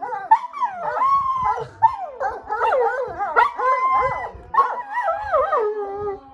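Dogs howling and whining with excitement, several wavering cries overlapping and rising and falling in pitch, broken by short pauses.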